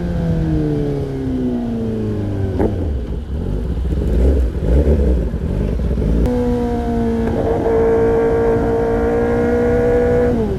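Kawasaki ZX-10R inline-four through an Arrow Pro-Race exhaust: the revs fall for a couple of seconds, then the exhaust goes to a rough, uneven rumble. About six seconds in it pulls again with a steady note that climbs slowly, and the pitch drops suddenly at the very end, as at a gear change.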